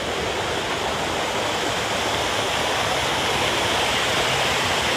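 Rushing, churning water of a strong-current water-park river, heard close at the water surface, slowly growing a little louder.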